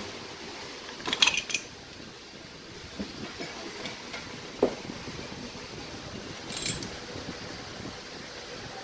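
A few light metallic clinks and clicks, like metal tools or parts being handled: a quick cluster about a second in, single clinks around three and four and a half seconds, and another short cluster near the end, over a steady background hum.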